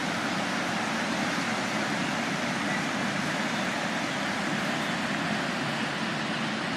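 Steady rushing of a river in flood, running dangerously high after heavy rain.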